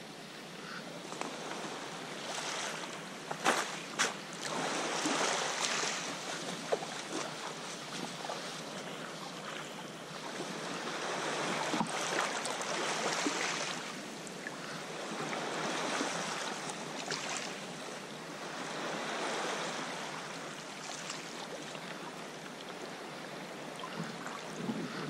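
Sea water splashing and lapping around a sea kayak as it is paddled, swelling and fading every few seconds. There are a few sharp clicks about three to four seconds in.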